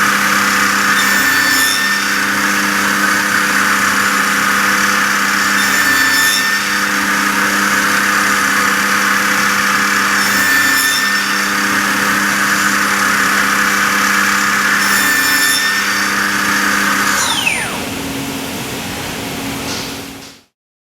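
CNC spindle driving a Benz Flex saw blade aggregate, running with a steady whine and hiss, with a brief change in the sound about every four and a half seconds. About seventeen seconds in, the pitch falls as the spindle winds down, and the sound then cuts off.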